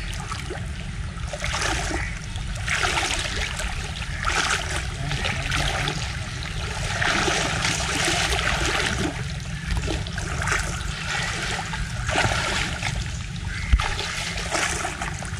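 Fast-flowing river water churning and splashing close to the microphone, swelling and easing every second or two. Sharper splashes at the water's edge near the end, with one brief knock.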